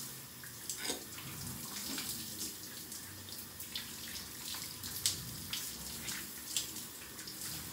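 Shower running: a steady spray of water, with scattered splashes as a face and beard are rinsed under it.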